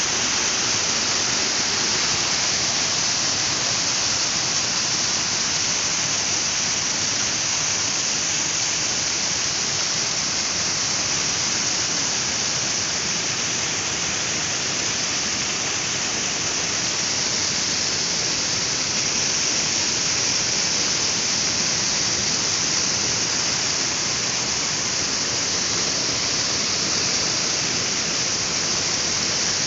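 Water overflowing the rim of a concrete reservoir and cascading down its wall, a strong, steady rushing splash.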